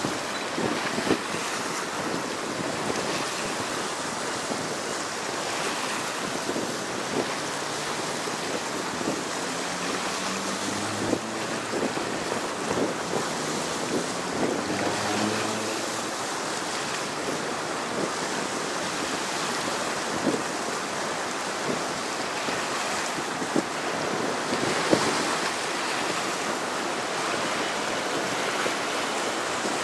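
Choppy river waves lapping and the wash of a passing tanker ship, with steady wind rumbling on the microphone. A faint low hum rises slowly in pitch in the middle.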